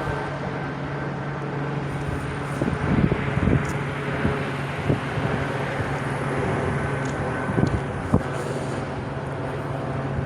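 Steady low engine drone with a few light knocks about three to four seconds in and again near eight seconds.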